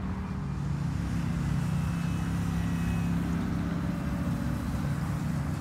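Electric motor and propeller of an electric-converted Hangar 9 Carbon Cub RC plane droning steadily in flight, growing a little louder over the first second or so.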